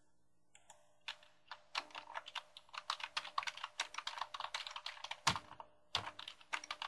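Typing on a computer keyboard: quick runs of key clicks that start about a second in, with one heavier keystroke a little after five seconds and a brief pause before the typing picks up again.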